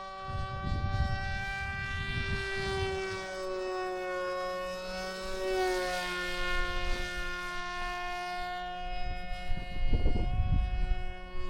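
Electric motor and propeller of a foam-board RC plane in flight, a steady high whine that sags a little in pitch midway and climbs back. Wind buffets the microphone at times.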